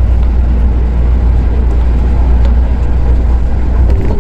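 Osaka Monorail train running along its guideway: a steady, heavy low rumble of the rubber-tyred car and its drive, heard from inside the front of the car.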